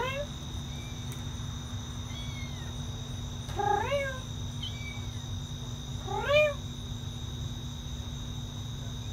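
A kitten meowing three times, each meow short with the pitch rising and then falling, spaced a few seconds apart.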